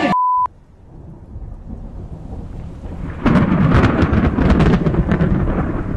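A short steady beep, then a low rumble that swells and breaks about three seconds in into a loud thunder crash with crackling: a thunder sound effect.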